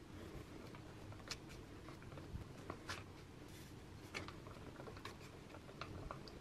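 Faint, scattered light taps and clicks from a stirrer knocking against a cup while slime powder is mixed into water, over a low room hum.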